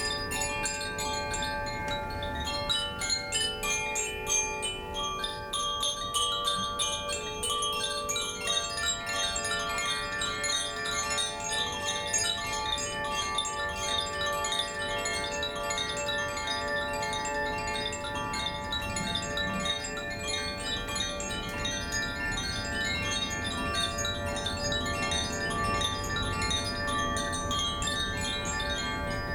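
Koshi chimes played continuously: a steady stream of light clapper strikes with many overlapping, ringing tones.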